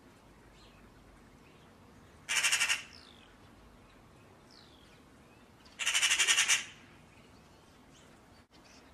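Eurasian magpie chattering: two short bursts of its harsh, rapid rattle, the second a little longer, with faint small-bird chirps between.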